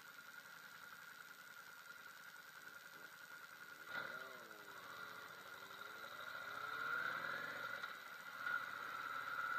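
Yamaha V Star 650's V-twin engine idling at a stop, then about four seconds in the bike pulls away: engine pitch dips as the clutch takes up, climbs as it accelerates, drops at a gear change near the end, and rises again.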